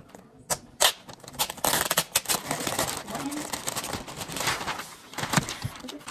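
Shiny metallic Christmas wrapping paper being torn and pulled off a gift box: a run of quick crackling rips and rustles starting about half a second in.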